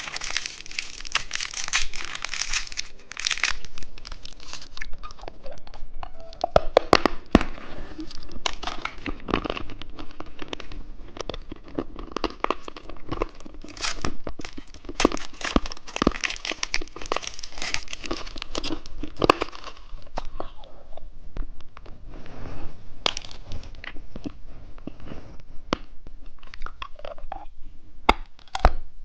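Plastic candy packaging being crinkled and torn open, with a continual irregular crackle and many sharp clicks.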